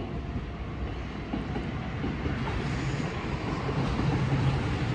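Electric train approaching on the near track, its wheels rumbling and clacking over the rail joints, growing steadily louder.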